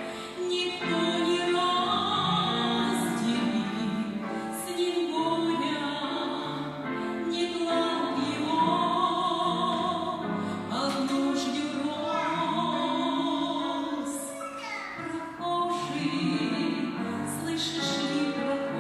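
A woman singing in a trained, operatic style, with long held notes and vibrato.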